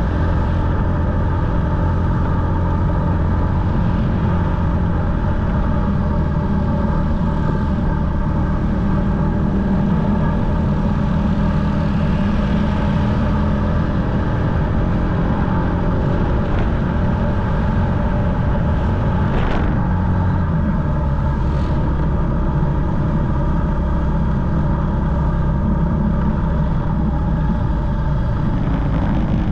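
Motorcycle engine running at a steady cruising speed while riding, over a heavy low rumble of wind on the action camera's microphone.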